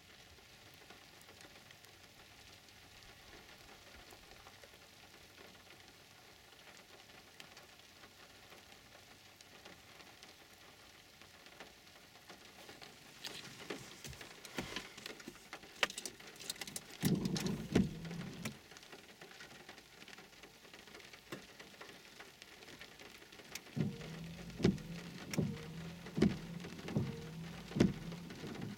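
Rain setting in during a thunderstorm: a faint hiss at first, then scattered drops from about halfway, a short heavier spell, and near the end large drops hitting a nearby surface about once a second.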